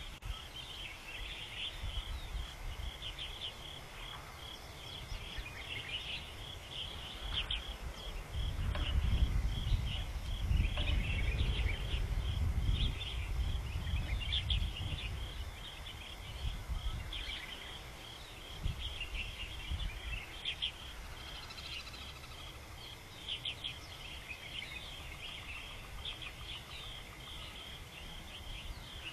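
Outdoor ambience: continuous high-pitched chirping in a rapid, repeating pattern, with a low rumble that swells for several seconds near the middle.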